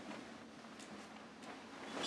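Faint rustling of bed covers and pillows being pulled about, with a couple of faint ticks.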